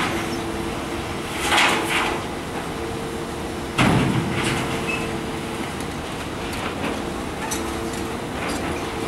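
Track excavator's diesel engine and hydraulics running with a steady drone while its bucket digs gravel aggregate out of a steel open-top gondola rail car. Scraping bursts of rock on steel come about one and a half seconds in and again, loudest and sudden, about four seconds in, with lighter clinks later.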